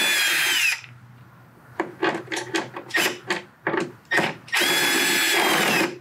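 Cordless electric screwdriver backing out T25 Torx screws from a motorcycle fairing: two short steady whines, each dropping in pitch as the motor stops, one at the start and a longer one near the end, with a run of sharp clicks between them.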